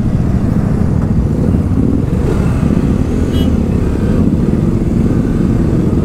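Motorcycle engines idling in stopped traffic at a signal, a steady low rumble with a brief high chirp about three seconds in.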